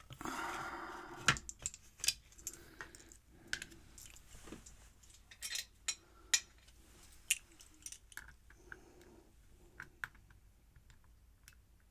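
Small metal clicks and clinks of a pin-tumbler lock being taken apart by hand, tools tapping and scraping on the lock body. It opens with about a second of scraping, followed by irregular sharp clicks.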